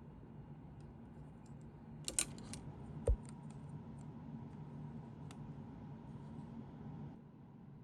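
Small sharp clicks and taps of plastic kit parts and hobby tools being handled on a workbench, with a cluster of louder clicks about two seconds in and a dull knock about a second later, over a steady low hum that stops about seven seconds in.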